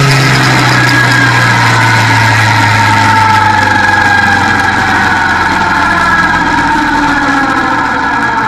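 Quad bike engine running under way. Its pitch falls slowly and steadily as the quad slows.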